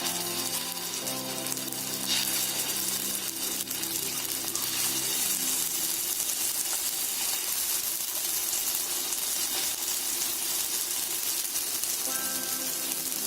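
Patties shallow-frying in hot ghee in a pan: a steady sizzle.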